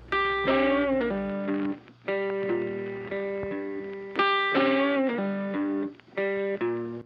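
Electric guitar music: plucked, held notes in short phrases with brief pauses between them.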